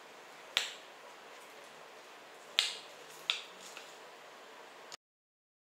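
Knife and fork carving a smoke-roasted duck on a wooden cutting board, the cutlery clicking sharply against the board and each other: once about half a second in, then twice close together about two and a half seconds in, with a fainter tap just after.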